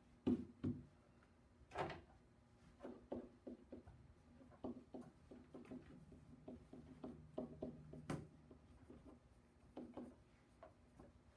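Irregular light taps and scratchy strokes of a marker writing a formula on a board, with a few louder knocks in the first two seconds.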